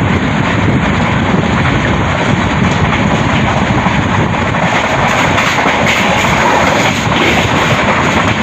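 Passenger train running at speed, heard from on board: a loud, steady noise of wheels on rail and rushing air.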